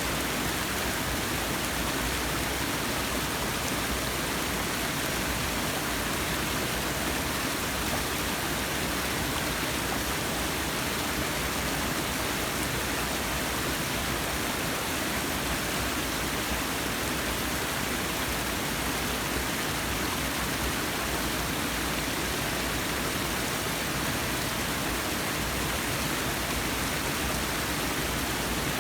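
Forest waterfall: water falling and splashing in a steady, even rush with no changes.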